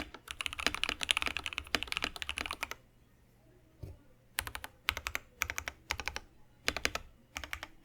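Typing on a KBD67 Lite mechanical keyboard with lubed Thic Thock Marshmallow linear switches on a polycarbonate plate. There is a fast, dense run of keystrokes for nearly three seconds, a brief pause, then short groups of a few keys about every half second.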